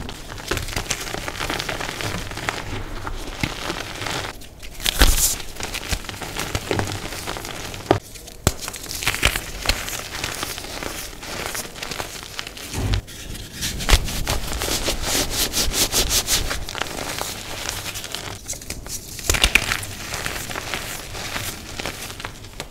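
Blocks of dyed gym chalk crushed and crumbled by hand: dry, irregular crunching and crackling as the chalk breaks, with soft, dusty powder squeezed between the fingers.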